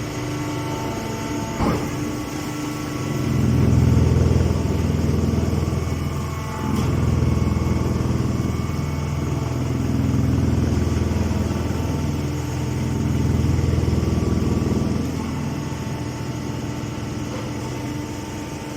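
Engine-driven straw baler machinery running steadily, its low hum swelling and easing about every three seconds as it works, with a short click near the start.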